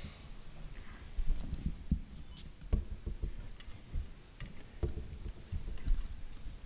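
Handling noise from a podium microphone being adjusted: irregular low bumps, knocks and clicks picked up by the mic.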